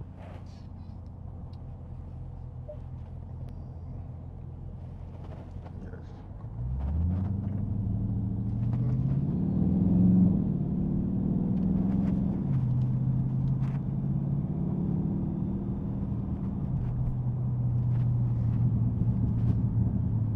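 Dodge Scat Pack's V8 running low and steady, then about a third of the way in its note rises and grows louder as the car pulls away under power, the pitch shifting and settling a few times as it drives on.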